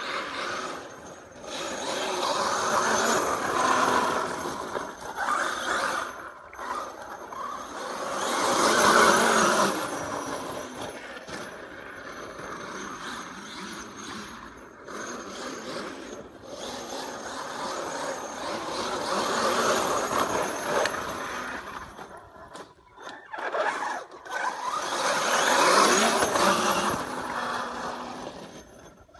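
Losi 5ive-T 1/5-scale RC truck, Castle 2028 brushless motor on 8S, driving on wet soil: motor, drivetrain and tyre noise that swells and fades several times as the truck speeds up, passes and draws away, with brief sudden drops when the throttle is let off.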